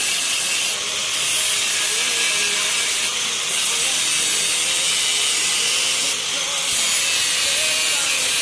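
Steady, loud hiss with slight changes in tone about every two to three seconds.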